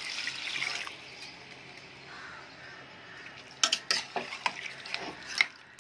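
Water hitting hot frying meat and potatoes in a cooking pot, hissing for about a second. Then a metal spoon stirs and knocks sharply against the pot several times.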